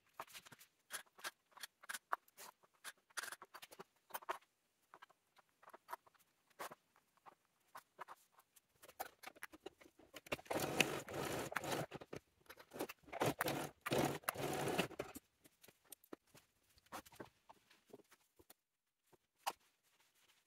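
Faint scattered clicks and rustling from fabric, a zipper and sewing clips being handled and laid together, with a busier stretch of rustling around the middle.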